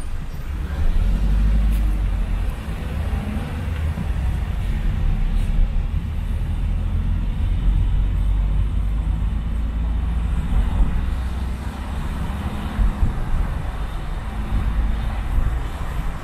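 Car driving along a wet city street: a steady low rumble of engine and tyres with a hiss of tyres on the wet road and surrounding traffic.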